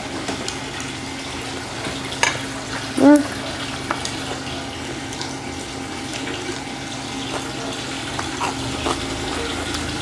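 Close-miked wet chewing and mouth sounds of a person eating a mouthful of bibimbap, with a few small clicks, over a steady low hum. About three seconds in, a short hummed "mm" that rises in pitch.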